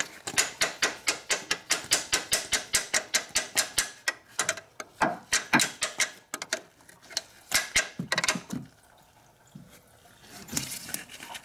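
Ratcheting wrench clicking rapidly, about five clicks a second, as it turns a bolt on a car engine's water pump. The clicks grow uneven, stop for about two seconds near the end, then start again briefly.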